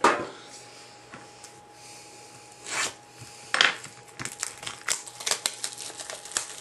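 A trading-card pack box being handled and opened by hand: a sharp tap at the start, two knocks around three seconds in, then quick rustling and clicking of the packaging to the end.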